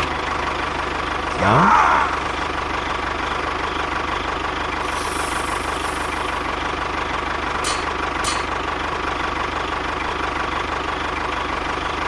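Tractor engine running steadily with a knocking chug, laid over the scene as a sound effect. A brief, louder rising sweep comes about a second and a half in, a hiss around five to six seconds in, and two sharp clicks near eight seconds.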